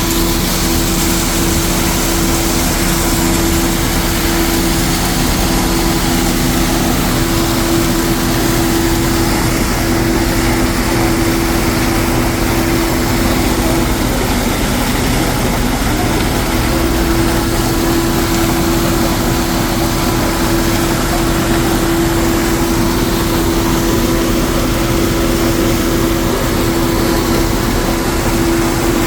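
Heavy engine of concrete-pouring machinery running steadily: a constant loud drone with a steady pitched hum, which wavers briefly about halfway through.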